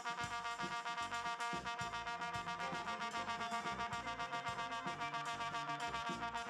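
Jazz ensemble recording: one high note held steadily, its sound taken for brass, over quick, even pulses about six a second; the note stops at the end.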